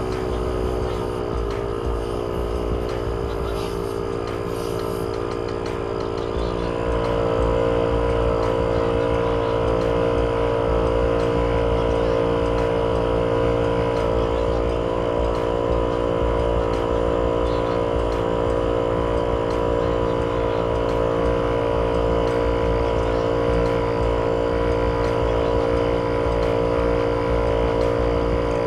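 12V portable air compressor running steadily as it inflates a car tyre, a continuous motor hum. Its pitch drops slightly about two seconds in and it gets louder about six seconds in.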